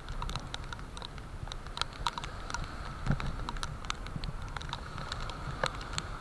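Light rain: raindrops ticking irregularly, several a second, on the camera housing, over the low steady rumble of breaking surf.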